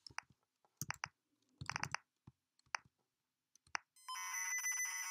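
Irregular keypress clicks as LOAD is typed on a ZX Spectrum-style computer. About four seconds in, these give way to the steady electronic screech of tape loading.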